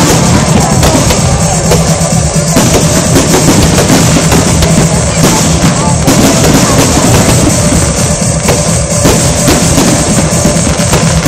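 Fireworks display: aerial shells bursting and crackling in quick succession, with loud music carrying a heavy drum beat.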